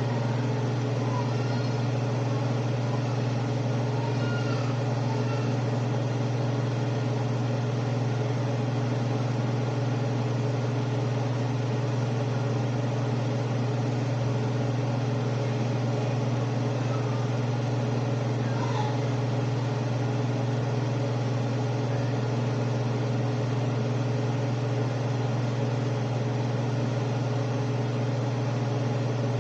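A steady, unchanging low mechanical hum of a running kitchen appliance motor.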